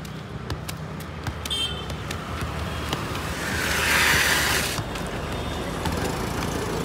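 A motor scooter passes close by over steady road traffic. Its engine and tyre noise build to a peak about four seconds in and drop away suddenly. Light taps of a football being kicked up are heard in the first second.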